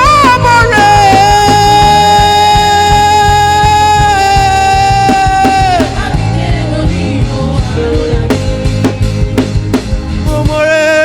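Live worship band with drum kit and bass playing a praise song. A singer holds one long high note for about five seconds, then the band plays on, and another sung line begins near the end.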